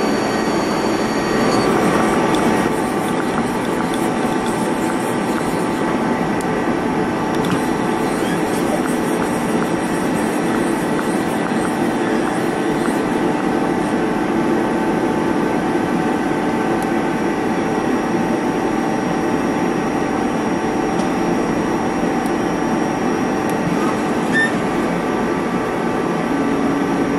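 Mazak Multiplex 4200 CNC lathe running through its machining cycle: a steady, dense machine noise with several steady whining tones. A few high tones drop out about two seconds in, and a low whine grows stronger later on.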